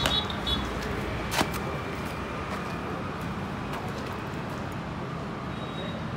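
Steady outdoor city ambience with a low hum of road traffic, and a single sharp click about a second and a half in.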